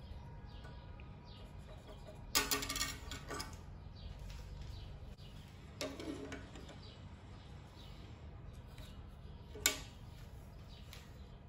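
A steel combination square and flat steel bar clattering against a steel table top: a ringing metal clatter about two seconds in, a shorter knock around six seconds, and a sharp tap near the end, over a steady low background noise.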